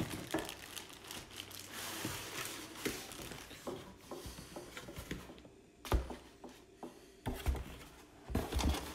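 Cardboard box flaps and clear plastic packaging rustling and crinkling as they are handled, with a few sharp knocks in the second half.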